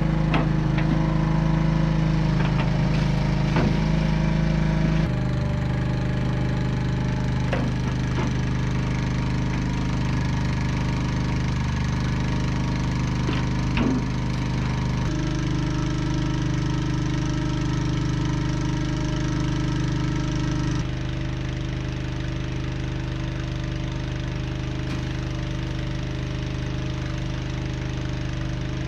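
A small engine running steadily in the background, its drone jumping abruptly to a different pitch a few times. Scattered clinks and splashes from the metal tubs in the first few seconds.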